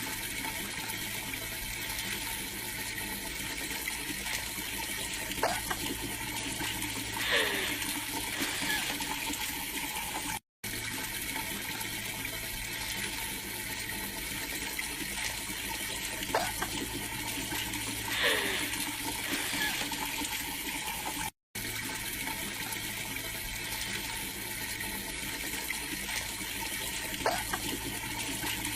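Steady hiss of running water. Each pass has a sharp click and a short falling squeak, and the same stretch of about eleven seconds repeats three times with brief silent breaks between.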